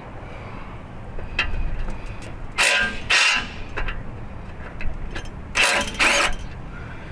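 Hand ratchet wrench clicking in short spurts: two pairs of quick bursts about three seconds apart, with a few small clicks and a low steady hum beneath, as a fastener on the transmission's torque converter inspection cover is worked loose.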